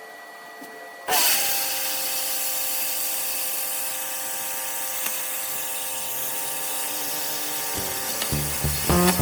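Parkside PPSK 40 A2 plasma cutter torch firing about a second in, then a loud, steady hiss with a thin whine as the arc cuts sheet metal. Guitar music comes in near the end.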